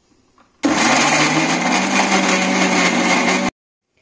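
Electric mixer grinder with a stainless-steel jar blending avocado and soaked cashew nuts into a thick paste. The motor starts about half a second in, its hum rising in pitch as it spins up, then runs steadily and cuts off suddenly near the end.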